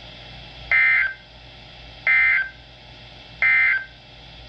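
Three short, identical bursts of EAS/SAME digital data tones, each about half a second long and a little over a second apart. The bursts are the end-of-message code that closes an emergency alert broadcast.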